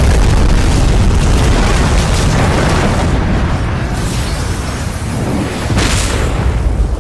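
Cartoon battle sound effects: a loud, deep rumbling boom that slowly dies away, with a fresh blast about six seconds in.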